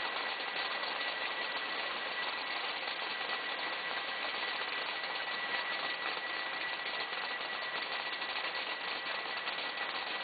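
Steady running noise of a food-processing laser sorter and its conveyor handling sliced jalapeños, with a thin, steady high whine over the even machine din.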